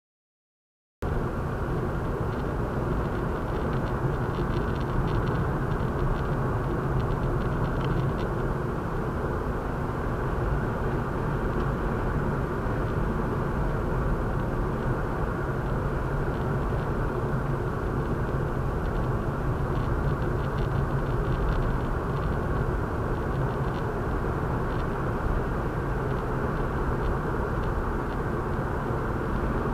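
Steady driving noise inside a moving car, picked up by a windshield dash cam: the drone of tyres on the road and the engine, starting abruptly about a second in.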